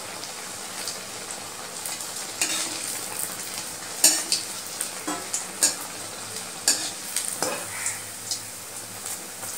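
Oil sizzling steadily as a dal-coated bread fritter fries in a steel kadai, with a metal spatula scraping and clinking against the pan half a dozen times, loudest about four seconds in.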